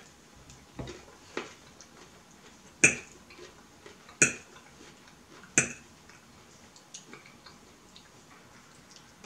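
Metal fork clinking against a plate while picking up food: three sharp, ringing clinks about a second and a half apart, with a few softer taps between.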